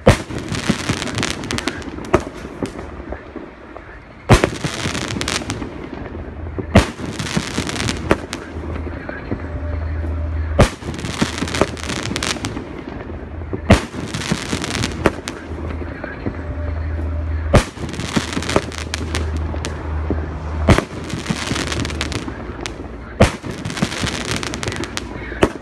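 A 25-shot, 2.5-inch aerial shell firework battery firing: eight loud bangs about three seconds apart as the shells burst. Each bang is followed by a second or two of crackling and hissing as the stars burn.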